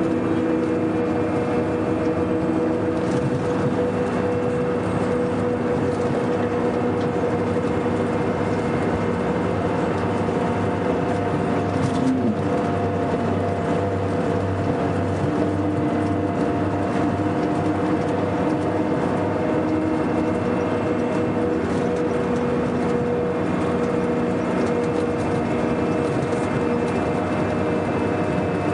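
Scania K420 coach's diesel engine running at a steady speed, a constant drone with several steady tones that barely shift.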